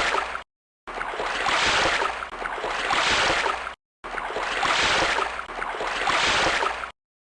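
Rushing, splashing water in short repeated takes, each swelling up twice over about three seconds with little droplet clicks in it. The takes stop with abrupt cuts to dead silence, three times.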